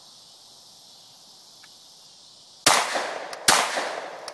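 FN P90 firing 5.7×28mm rounds on full auto. The fire starts abruptly about two and a half seconds in: two loud reports less than a second apart, each trailing off. Before them there is only a steady hiss of insects.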